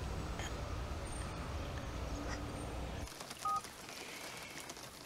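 Low, steady street rumble that cuts off about three seconds in. Soon after comes a short two-tone electronic telephone beep.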